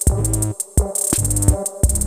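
Background music with a beat of sharp percussive hits over a bass line.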